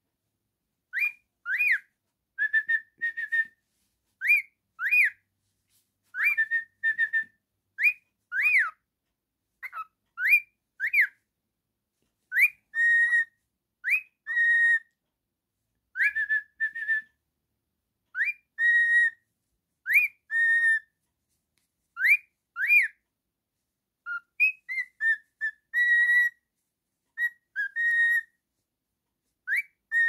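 Cockatiel whistling a repeated tune: short phrases of clear whistled notes, each a quick rising-and-falling note followed by a held steady note, coming every second or two with brief pauses between.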